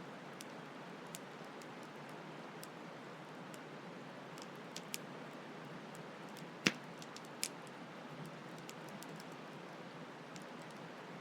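Campfire crackling with scattered sharp pops, the loudest a little past halfway, over a steady rush of flowing stream water.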